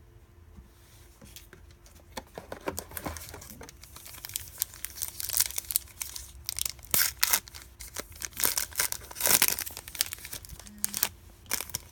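Wrapper of a 2017 Panini Certified football card pack being torn open and crinkled: sparse crackles at first, then a dense run of crinkling and tearing from about four seconds in, loudest near the end.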